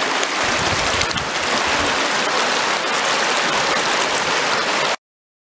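Shallow river water rushing over a rocky bed and around a small sluice box: a steady, even rush that stops abruptly near the end.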